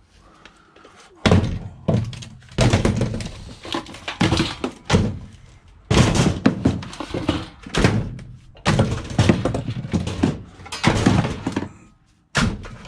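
Scrap metal being thrown and loaded into a van: a run of loud thunks and metallic clattering, in several separate bursts.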